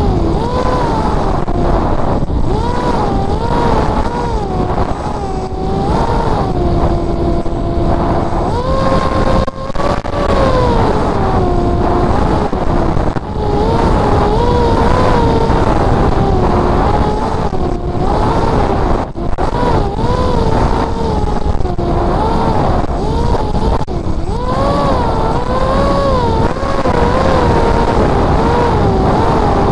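Electric motor and propeller of a Spec Wing FPV flying wing heard in flight from an onboard camera: a whine whose pitch keeps rising and falling with the throttle, held steady for a couple of seconds at one point, over a constant rush of wind.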